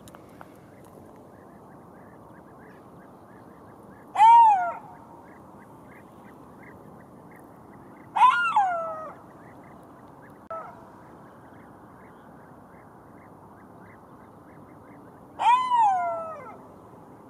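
Golden jackal calling: three short yelps several seconds apart, each falling in pitch, with a fainter short one between the second and third.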